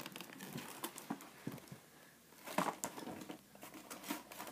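Light rustling and scattered small knocks of a cardboard box and its packaging being handled while a foam RC plane is worked out of it, with a short burst of rustling about two and a half seconds in.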